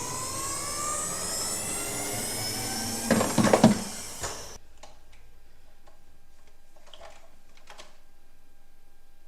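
A mechanical whine rising steadily in pitch, with a burst of loud clattering knocks about three seconds in, cutting off suddenly halfway through. Afterwards faint scattered clicks over a thin steady tone.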